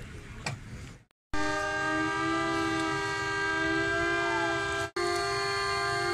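A siren sounding a steady, held chord of several tones. It starts about a second in and breaks off briefly near the end. It marks the moment of silence for the earthquake's victims, with everyone standing still.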